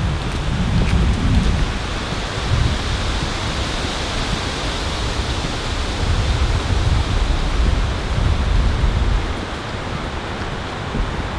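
Wind buffeting the microphone: an uneven, gusty rumble over a steady rushing hiss.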